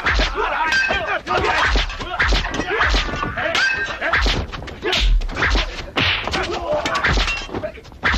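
Movie fight-scene sound effects: a quick string of punch and kick hits with low thuds, mixed with the fighters' shouts and yells.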